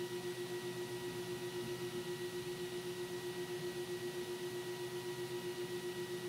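Noctua A12x25 120 mm fan running at full speed, about 2130 RPM, on an open test stand: a steady whir with a clear hum tone that wavers evenly about eight times a second.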